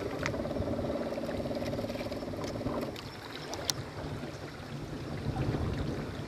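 A baitcasting fishing reel whirring rapidly as line is wound in against a hooked peacock bass, for about three seconds. Then wind and water noise around the boat, with a steady low hum.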